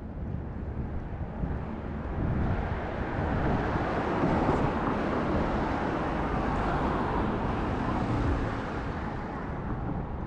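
A car driving past on the street, its tyre and engine noise swelling over a few seconds and then easing off near the end.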